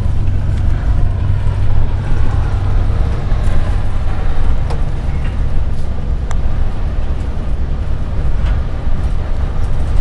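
Steady low rumble of engine and road noise inside a moving bus, with a few faint clicks near the middle.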